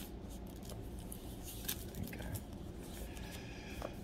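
Thin Bible-paper pages being handled and turned: faint, short rustles and small clicks.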